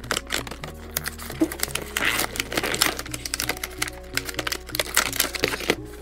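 Clear plastic toy packaging crinkling and crackling as it is handled and pulled open, in dense irregular crackles, over background music with a steady looping bass beat.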